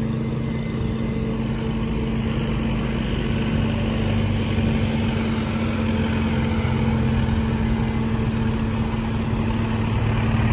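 Heavy vehicle engine running steadily under load on an uphill climb, a low even hum that grows a little louder about halfway through.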